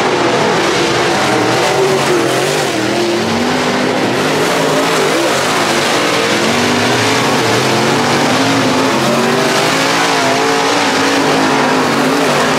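Dirt late model race car engines running hard at racing speed, their pitch rising and falling repeatedly over a constant loud noise.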